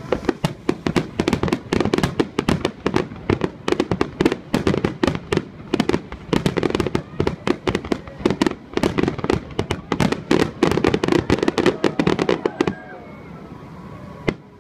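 Aerial firework shells bursting in a rapid, overlapping barrage of many bangs a second during a display finale. The barrage stops suddenly about thirteen seconds in, leaving faint voices and one last bang near the end.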